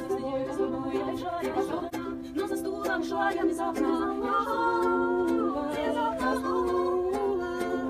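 Small mixed choir singing in harmony, several voices holding sustained notes, with a ukulele strummed lightly underneath.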